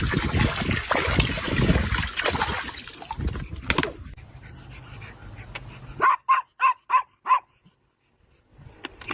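A small dog yipping five times in quick succession, about four yips a second, after a stretch of noisy scuffling.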